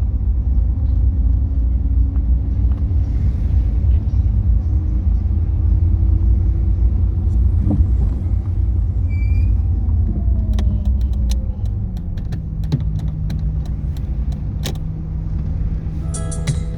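Steady low rumble of a motor vehicle running, its pitch shifting a little, with a series of sharp clicks in the second half.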